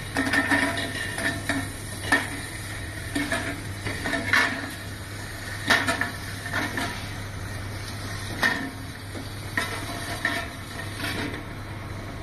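Automatic powder filling and capping line running: a steady machine hum with irregular clinks and knocks of bottles or cans striking each other and the machine parts.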